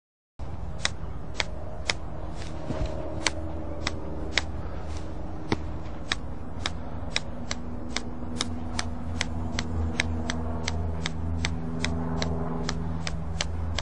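Golf ball being bounced repeatedly on the face of an iron: sharp clicks about two a second, quickening to about three a second in the second half, over a steady low hum.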